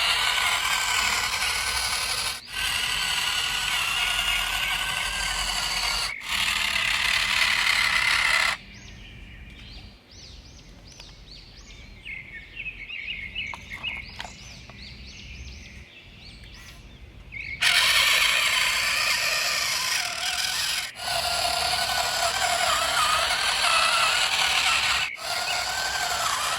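Small electric motors and gearboxes of radio-controlled construction models running, with a wavering whine as their speed changes. Several abrupt cuts, and a much quieter stretch of faint ticks and scraping in the middle.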